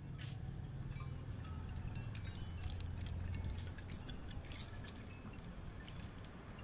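Hanging strands of a bamboo bead curtain knocking and clinking against each other as they are brushed, a scatter of light clicks that is thickest in the middle seconds, over a low steady rumble.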